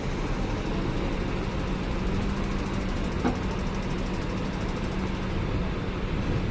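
Intercity coach bus engine running steadily, with a steady droning tone over the engine noise.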